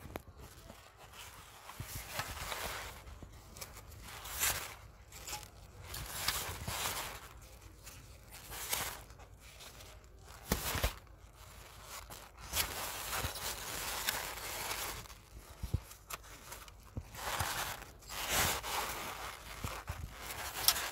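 Thin plastic carrier bag rustling and crinkling as it is handled, in irregular bursts every second or two.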